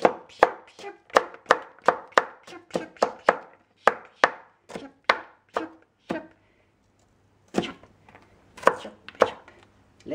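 Kitchen knife chopping a red onion on a plastic cutting board: quick, even knocks about three a second, a pause about six seconds in, then a few slower chops.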